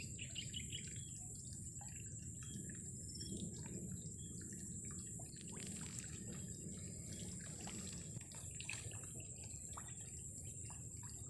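Faint outdoor ambience by still water: a soft trickle of water with scattered small ticks and drips over a steady high-pitched hiss.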